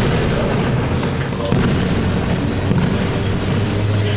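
Aerial fireworks exploding in the sky: a continuous dense crackle and rumble of bursts, with sharp bangs at the start and again about a second and a half in.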